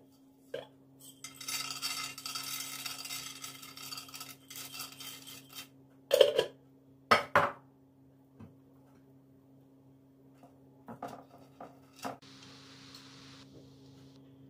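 Dishes and utensils being handled: a few seconds of rattling and scraping, then two loud clinks about a second apart, a few light taps, and a short hiss near the end, over a steady low hum.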